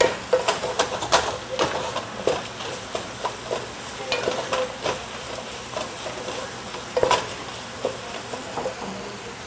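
A spoon stirring and scraping a pot of onion, ginger-garlic paste and whole spices frying in oil, with a sizzle underneath. The scrapes and knocks come irregularly, quickest in the first couple of seconds and sparser later. The base is stirred constantly so the ginger-garlic paste does not stick to the bottom and burn as it turns golden.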